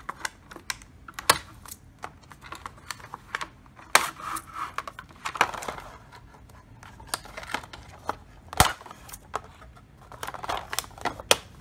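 Fiskars scissors snipping through plastic zip ties on a packaging card: a string of sharp, irregularly spaced snaps and clicks, with the card and scissors being handled between cuts.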